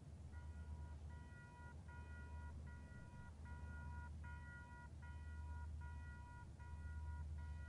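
Distant twin Aurizon 2300 class diesel-electric locomotives working hard upgrade under power, a low steady rumble. From just under half a second in, a high tone pulses on and off over it, about three times every two seconds.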